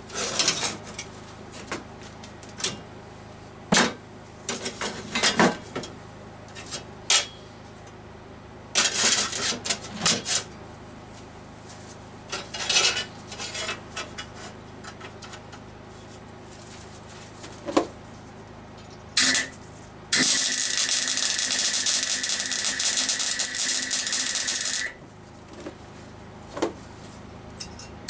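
Metal parts and tools knocked and clinked about on a workbench, in scattered separate strikes. About twenty seconds in, a power tool runs steadily for around five seconds and then stops.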